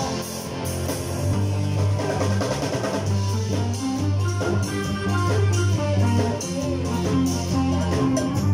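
Live band playing: drum kit, electric bass guitar and electric guitar.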